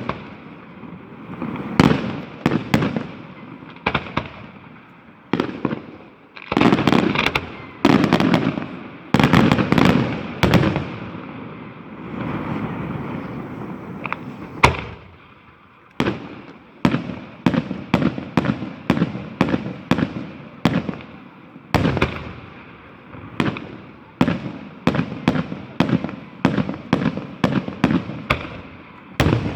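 Aerial fireworks display: a run of loud shell bursts, each echoing away, with dense overlapping volleys in the first third. In the last third comes a rapid string of bangs about two a second.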